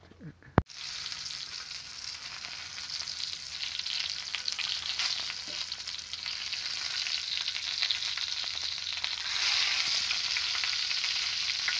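Halved tomatoes dropped into hot oil in a kadhai: a sharp knock less than a second in, then steady loud sizzling as they fry, swelling louder about nine seconds in.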